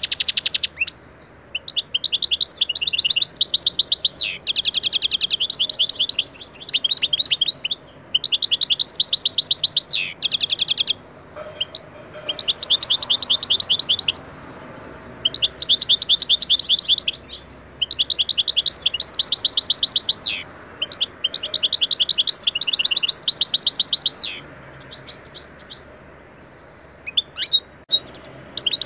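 European goldfinch singing: phrases of fast, twittering, trilled notes several seconds long, separated by short pauses. There is a quieter lull about three-quarters through, then a few scattered chirps near the end.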